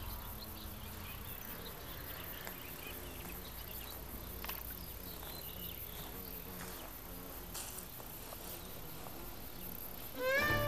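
Steady high-pitched chirring of insects. Near the end, folk music with a fiddle comes in over it.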